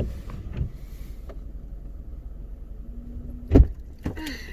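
Low steady rumble of a vehicle with its engine running in strong wind, with a few soft knocks and one loud thump about three and a half seconds in.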